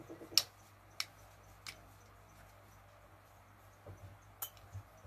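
Faint room tone broken by four sharp clicks, the loudest about half a second in, with the others near one second, near two seconds and near the end.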